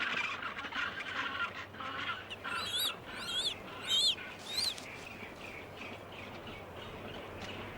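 A penguin breeding colony calling, many birds at once. Near the middle, four short, high, wavering calls come in quick succession above the chorus.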